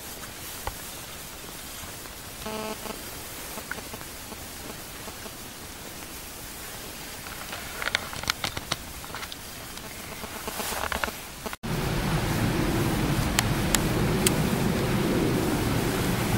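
Steady outdoor noise with a short pitched call about two and a half seconds in and a run of sharp clicks from about eight to eleven seconds. It breaks off suddenly near twelve seconds, and a louder, low rumbling noise follows.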